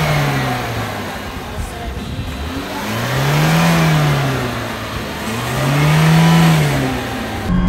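Chevrolet Niva's engine revving as it drives through deep mud, the engine note climbing and falling twice over a steady rushing noise of the tyres churning the mud.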